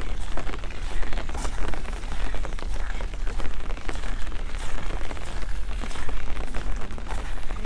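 Rain falling and pattering in a dense, continuous crackle of drops, with a steady low rumble underneath.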